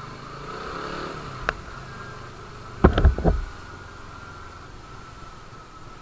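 Suzuki Raider 150 Fi motorcycle's single-cylinder four-stroke engine running as the bike rides off, its pitch rising in the first second. A sharp click comes about a second and a half in, and a quick cluster of loud thumps about three seconds in.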